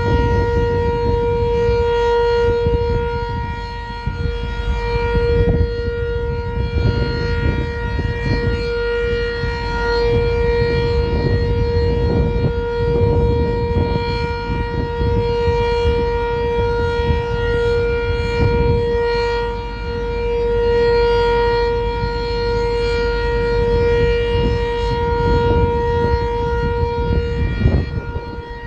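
Sentry 7V8 electromechanical outdoor warning siren sounding a steady tone during its scheduled test. The pitch holds level while the loudness swells and fades every few seconds.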